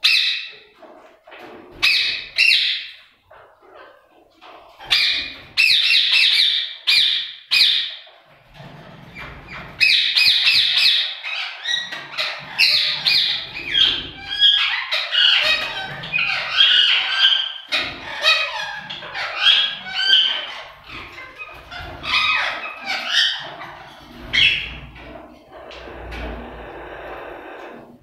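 Caged parakeets squawking: loud, harsh calls in short clusters, then a denser run of many birds calling over one another from about ten seconds in, thinning out near the end.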